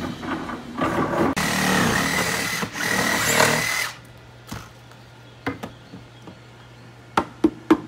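A power drill runs for about three seconds with a steady whine, then stops. A low hum follows, with a few sharp knocks near the end.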